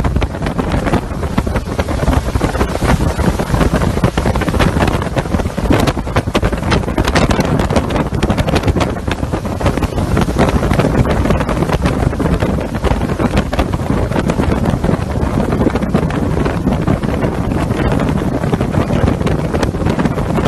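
Hurricane-force wind blowing hard over a phone microphone, a continuous dense rumble and rush that never lets up, with wind-driven rain.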